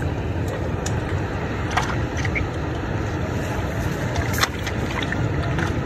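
Steady rushing of fast, turbulent river water flowing out below a dam, heavy and low, with a few faint short calls and a single click.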